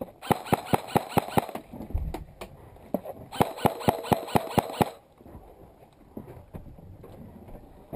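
Airsoft electric rifle firing two quick strings of shots, about six a second, with the mechanism's high whir over each string; the second string starts about three and a half seconds in.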